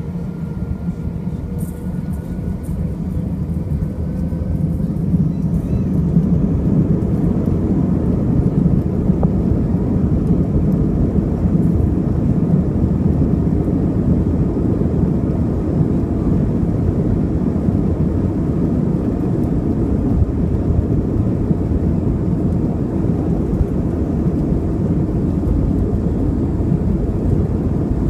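Airbus A320's IAE V2500 turbofan engines spooling up to takeoff thrust, heard from inside the cabin over the wing. A rising whine and swelling roar over the first several seconds settle into a steady loud roar and rumble as the jet accelerates down the runway on its takeoff roll.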